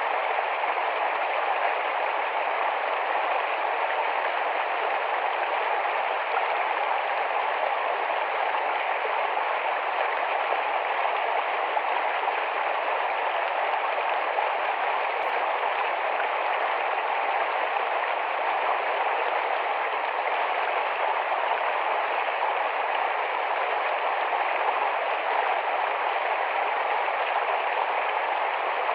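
Small, fast-flowing forest stream running over stones, a steady rushing and babbling of water.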